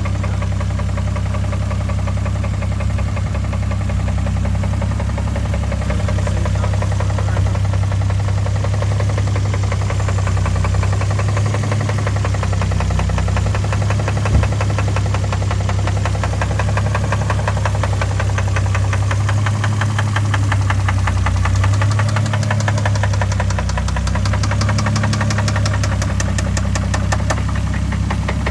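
Car engine running steadily with a hard, rapid knocking from inside it. One sharper knock stands out about halfway through.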